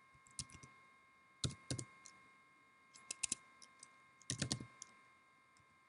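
Computer keyboard typing: four short bursts of a few keystrokes each, with pauses in between.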